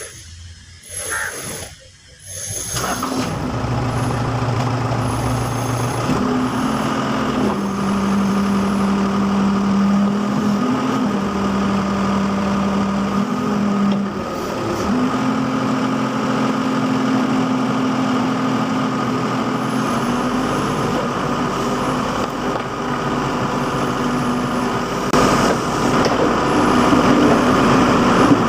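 Backhoe loader's diesel engine running while it digs, its pitch shifting up and down several times as the hydraulics are worked. The engine sound comes in about three seconds in.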